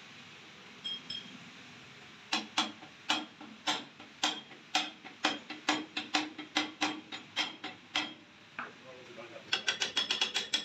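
Hammer strikes on the steel beater-blade hub of an atta chakki flour mill, about three sharp metallic knocks a second with a short ring, then a quick fast run of clicks near the end as a bar is worked on the hub.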